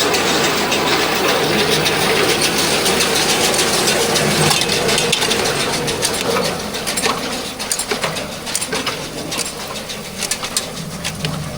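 Farm tractor engine running with a steady mechanical din. About halfway through it gets somewhat quieter, and a run of sharp clicks and rattles stands out.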